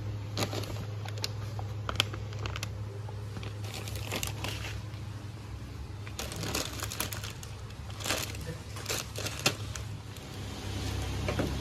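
Plastic snack packets crinkling and rustling in irregular bursts as they are handled, over a steady low hum.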